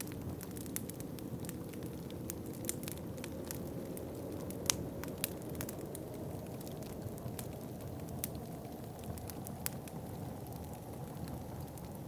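Wood fire in a fireplace crackling, with irregular sharp pops throughout, the loudest about halfway through, over a steady low rush of wind.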